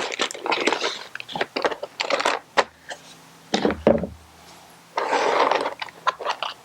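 Hand tools and parts being handled on a workbench: a run of clicks and light knocks, then about five seconds in, a second or so of scraping and rustling.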